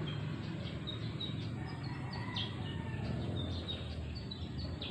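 Small birds chirping in short high notes, many times over, above a steady low background rumble.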